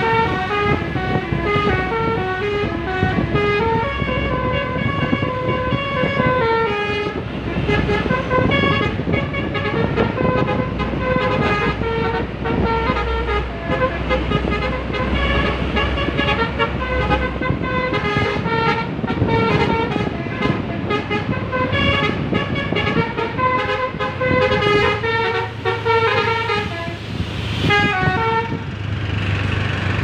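Bus 'basuri' telolet horn, a set of electric air-horn trumpets, playing a tune note by note over the rumble of passing traffic.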